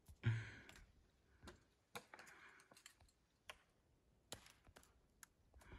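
Near silence: a soft exhale just after the start, then faint scattered clicks.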